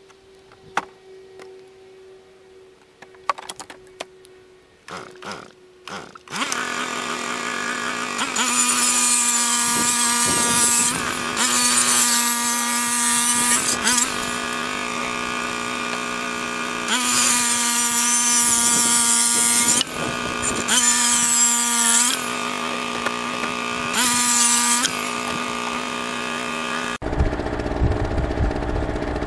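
A few knocks and taps of handling wood, then a corded electric power tool starts about six seconds in and runs with a steady whine, with several louder stretches of a few seconds as it cuts into wood. Near the end the sound changes abruptly to a low rumble.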